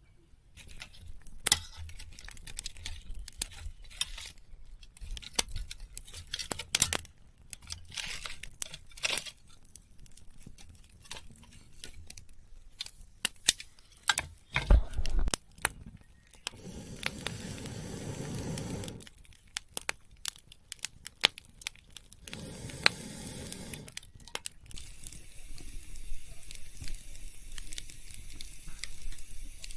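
Close handling noises: crinkling and rustling with many scattered clicks and taps, and two longer stretches of noisy rushing about halfway through and a little later.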